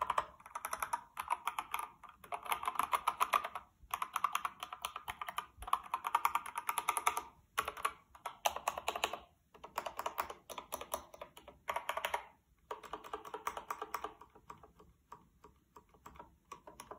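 AKKO 5108S full-size mechanical keyboard with stock, unlubricated Akko Jelly Pink linear switches, its keys pressed in quick bursts of rapid clacking a second or two long with short pauses between.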